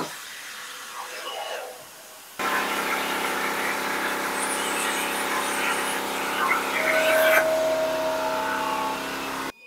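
CNC plasma torch cutting 10-gauge steel plate. A quieter hiss gives way about two and a half seconds in to a sudden loud, steady hiss with a hum, which cuts off abruptly just before the end.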